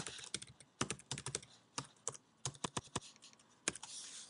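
Typing on a computer keyboard: quick, irregular keystrokes in short runs, with a brief hiss near the end.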